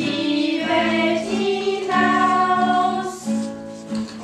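A choir sings a slow German song with long held notes over a steady accompaniment.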